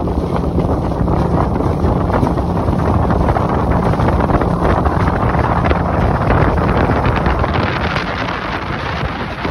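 Strong wind buffeting the microphone of a fishing boat running under way, over the steady hum of its motor.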